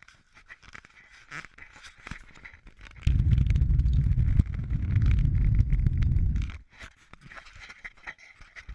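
Low rumble on an action camera's microphone, starting suddenly about three seconds in and stopping about three and a half seconds later, with scraping and rustling of the camera being handled before and after.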